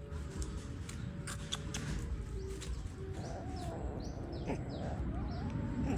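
Several short animal squeaks and chirps, some arching up and down in pitch and some high and brief, starting about halfway through over a low rumble, after a few sharp clicks.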